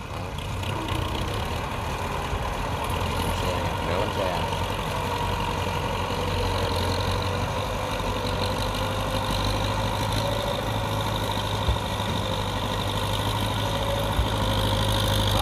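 Four-cylinder diesel engine of an MTZ-50 tractor running steadily under load as it pulls a loaded cassava trailer up a slope. It grows gradually louder as the tractor comes closer.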